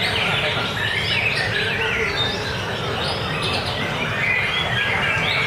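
White-rumped shama (murai batu) singing in quick, varied chirping phrases without a break, over a steady low background noise.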